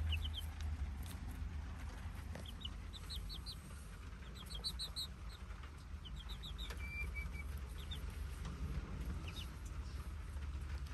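Young chicks peeping in quick runs of three to five short high notes, several times over, while they peck at a corn cob, over a low steady rumble.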